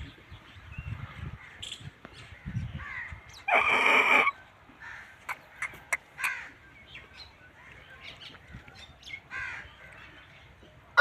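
Aseel chickens calling: one loud, harsh squawk lasting under a second about three and a half seconds in, with scattered short chirps and peeps around it.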